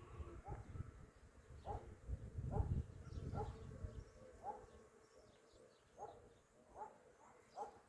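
Short, hooked animal calls repeating about once a second, faint, over a low rumble that dies away after about three seconds.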